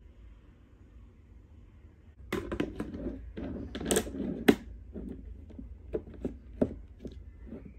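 Clear plastic storage box being handled and its lid fitted on: starting about two seconds in, a quick run of plastic clicks and knocks with one sharp knock, then scattered lighter clicks.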